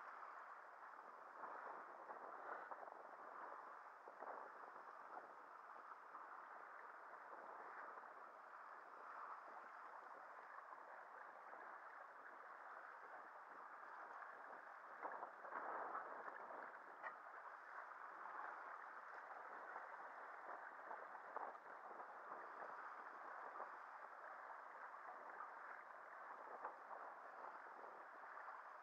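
Faint, steady rush and gurgle of sea water along the hull of a Timpenny 22 sailing yacht under way, swelling briefly a few times.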